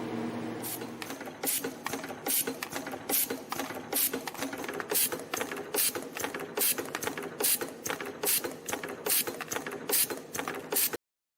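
YHM CT-210 CNC micro spring machine at work. After a steady hum it breaks into a rapid clatter of mechanical clicks, with a louder clack a little more than once a second, then cuts off suddenly near the end.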